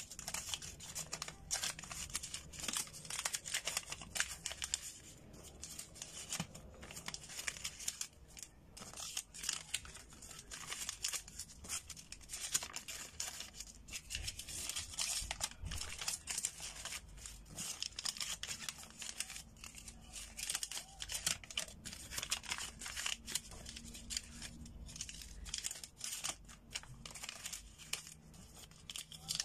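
Crisp paper banknotes crinkling and rustling in the hands as they are unrolled, flattened and counted, a continuous irregular crackle.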